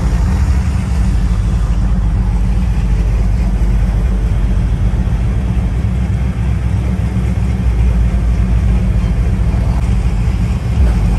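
Steady, loud low rumble of a motor vehicle, with a faint even hiss above it.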